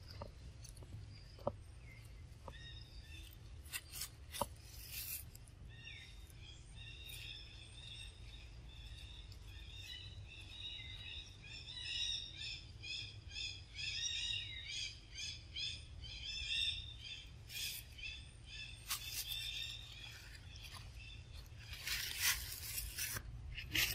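A bird calling over and over in short high chirps, about three or four a second at its busiest in the middle, with sharp crackles of dry leaves here and there and a denser rustle near the end.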